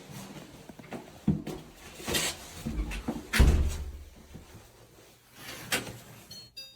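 A few scattered knocks and thumps, with the loudest a low thud about three and a half seconds in.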